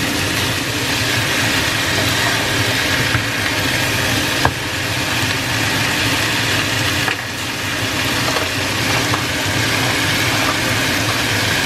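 Sliced bitter melon sizzling in a hot frying pan with tomato, onion and garlic as it is stirred with a wooden spatula: a steady sizzle, with a single sharp tap about four and a half seconds in.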